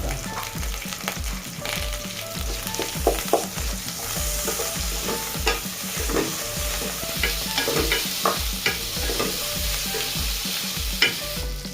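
A spoon stirring and scraping in a cooking pot while onion, ginger and garlic pastes sizzle in hot oil, with a steady hiss and frequent clicks and scrapes.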